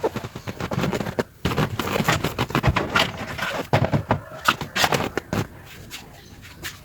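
Plastic trim cover of a car seatbelt assembly being pried and worked loose: a rapid, irregular run of clicks, knocks and scrapes.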